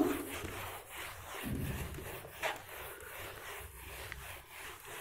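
Faint rubbing of a duster wiping marker writing off a whiteboard.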